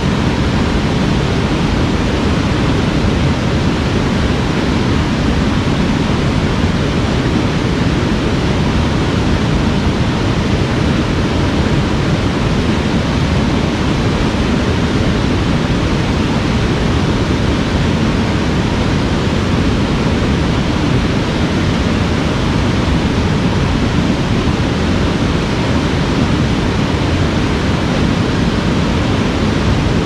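River rapids: white water spilling over a low rocky ledge and churning downstream, a steady, even rush of water with no letup.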